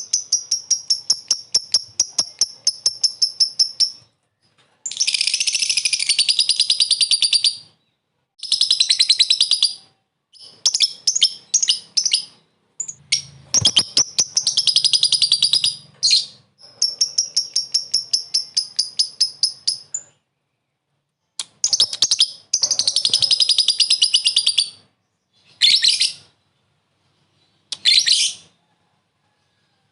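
Lovebird ngekek: long trains of rapid, high, sharp chattering notes, about seven a second, each train lasting several seconds with short pauses between, then shorter bursts near the end. This is the call a lovebird uses to challenge a rival.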